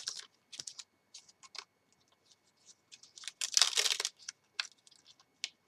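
Rustling and light clicks of rubber-stamping supplies being handled, with a louder rustle lasting just under a second about three and a half seconds in.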